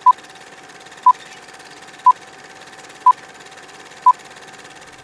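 Film-countdown-leader sound effect: five short beeps at one pitch, one each second, over a faint steady hum with fast ticking underneath.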